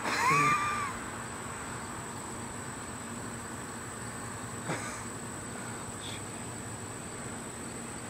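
A short, loud blast from a handheld air horn, under a second long, its pitch sliding up, holding and dropping away. Afterwards a steady high insect whine, with a single click near five seconds in.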